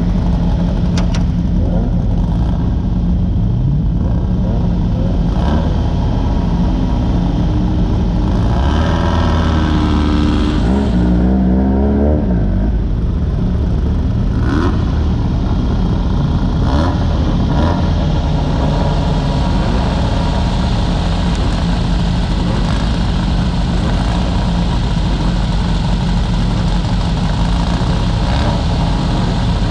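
VW engine of a Class 9 off-road race buggy running hard, heard from inside the open car, with a rev that climbs and then drops about a third of the way in. A few brief knocks come through over the steady engine and road noise.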